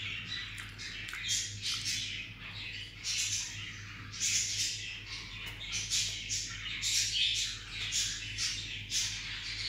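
Birds chirping and squawking in short repeated calls, about one or two a second, over a steady low hum.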